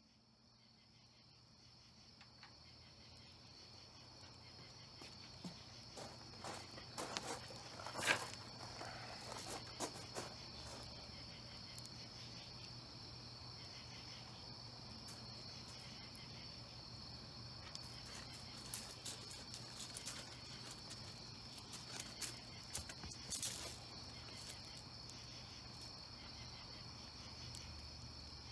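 Crickets chirping in a steady night-time chorus, fading in over the first few seconds. Scattered short clicks and knocks sound over it, the loudest about eight seconds in.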